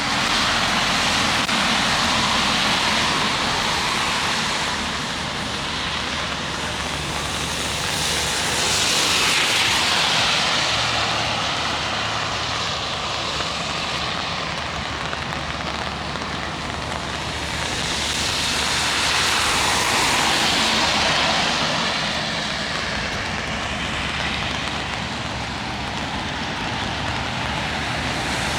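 Steady rain hiss, with the tyre hiss of vehicles on a wet road swelling and fading about three times as they pass.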